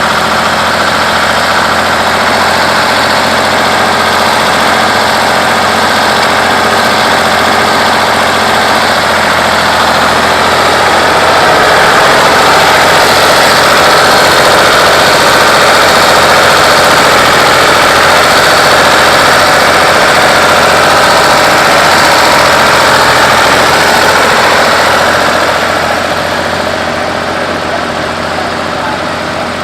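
1965 Ford 3000 tractor's three-cylinder engine running steadily, growing louder through the middle and dropping off near the end.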